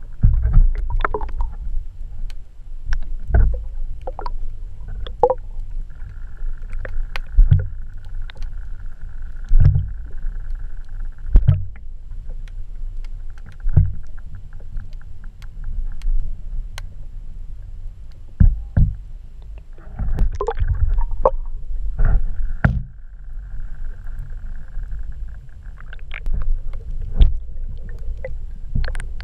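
Muffled underwater rumble of water moving around a GoPro in its waterproof housing on a pole, with frequent knocks and bumps from handling. A faint steady whine comes in twice, each time for several seconds.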